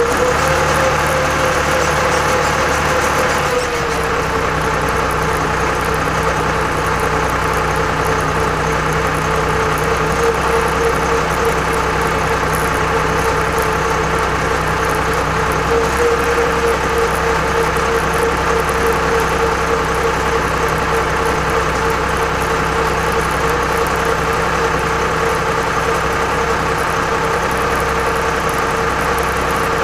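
Torpedo TD 55 tractor's diesel engine running steadily as it drives through snow, with a held whine over the engine note. The engine eases off slightly about three and a half seconds in, then holds an even pace.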